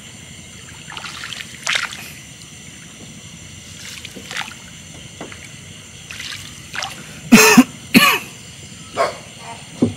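A man coughing hard from an itchy throat: a loud fit of coughs about seven seconds in, then two smaller coughs before the end, with fainter throat-clearing earlier.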